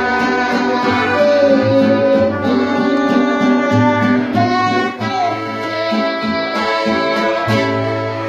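Live band music: trumpet and accordion playing over strummed guitars.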